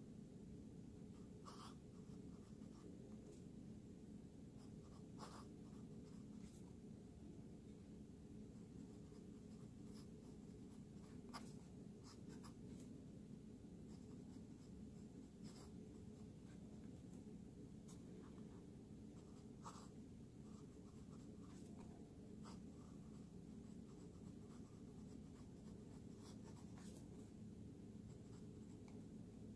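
Steel fountain pen nib scratching faintly across paper in short, irregular cursive strokes, over a steady low hum.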